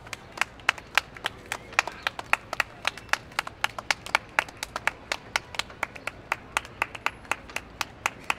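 Hands clapping in a steady rhythm, about four claps a second.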